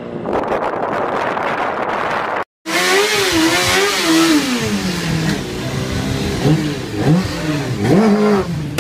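A rushing noise, cut off by a brief silence about two and a half seconds in, then a Honda sport bike's engine revving hard and repeatedly, its pitch climbing and falling, over the hiss of a rear tyre spinning in a stationary burnout.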